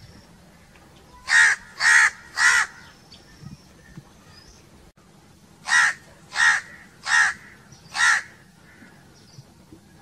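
House crow cawing: three caws in quick succession, then after a pause of about three seconds, four more at an even pace.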